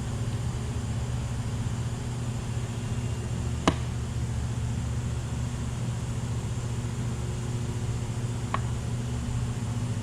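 Steady low hum of running machine-shop machinery, with one sharp click about a third of the way in and a lighter tick near the end.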